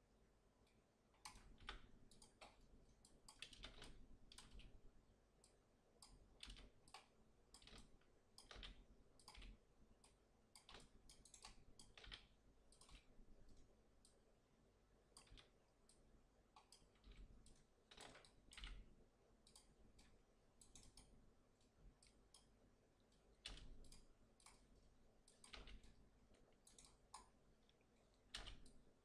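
Faint, irregular clicking of a computer mouse and keyboard, dozens of short clicks in uneven clusters throughout.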